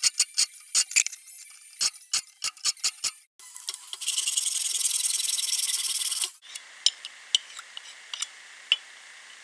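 Hand-tool restoration sounds in quick succession: about ten brisk scraping strokes on a handsaw blade, then a steady loud rasping of the blade being scrubbed for about three seconds. After that come scattered small clicks and clinks of glass jars being handled.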